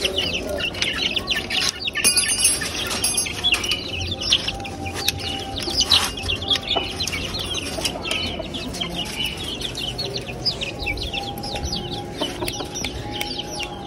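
A flock of young chickens clucking and peeping continually as they come out of their coop, with a brief rattle about two seconds in as the wire-mesh coop door is worked open.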